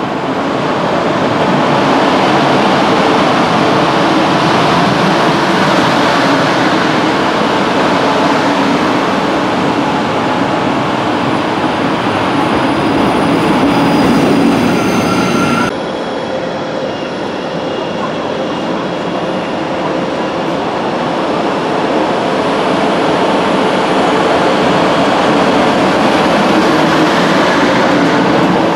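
A DB Class 112 electric locomotive of East German design accelerating a double-deck regional train: steady traction and wheel noise with a few faint steady tones, getting louder as it passes. About halfway through the sound drops suddenly and then builds again.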